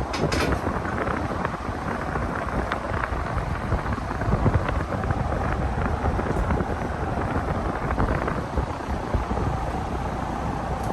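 SMC Royal Flush 42 ceiling fan running, its moving air buffeting the microphone as a steady rush with a low rumble. A few clicks sound right at the start.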